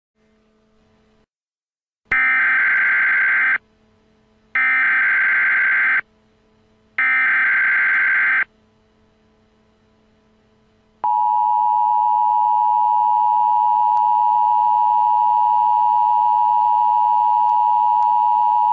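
Emergency Alert System SAME header: three harsh, buzzy data bursts about a second apart, followed after a short pause by a loud, steady attention tone that runs about eight seconds, announcing an alert.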